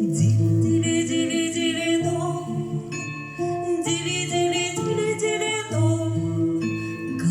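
Background music: an instrumental passage of a song between sung lines, with sustained pitched tones and bright high notes.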